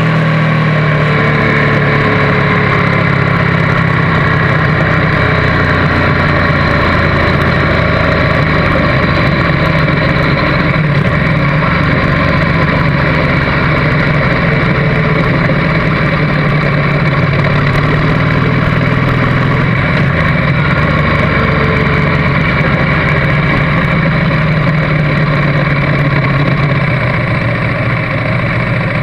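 Motorcycle engine running steadily under way, heard from a camera mounted on the bike with wind and road noise over it, dropping slightly in level near the end as the bike slows.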